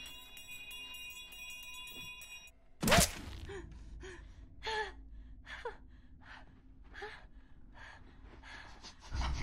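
A steady, high held chord for the first couple of seconds, then a woman's sudden sharp gasp about three seconds in, followed by a run of short, panicked breaths and whimpers.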